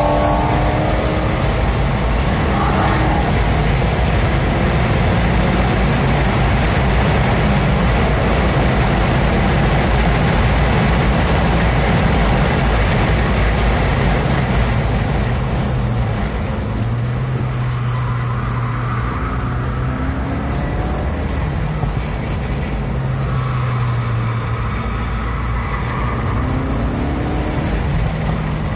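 Inside the cabin of a 2016 Ford Focus RS at track speed: the turbocharged 2.3-litre four-cylinder runs under throttle against steady wind and road noise. The engine shifts up a gear and later down through the gears, and revs rise again as the car accelerates through a corner near the end.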